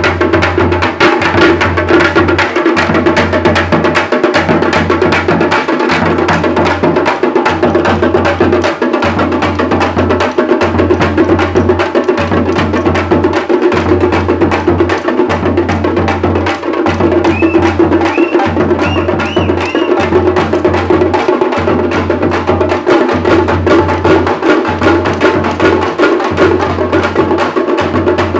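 Thappattam drumming: thappu (parai) frame drums beaten with sticks in a fast, driving rhythm, with a low pulse that breaks off briefly about every second and a half. A few short high chirps sound about two-thirds of the way through.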